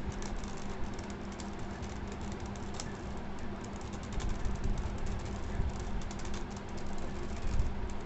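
Plastic 3x3 Rubik's cube being turned by hand, its layers clicking and clattering in quick irregular runs as the faces are twisted through an algorithm.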